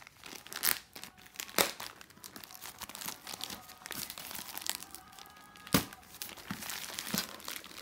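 Plastic shipping mailer bag and its packing tape being torn and crinkled by hand as they are pulled off a cardboard box, with three sharper, louder crackles, the last about six seconds in.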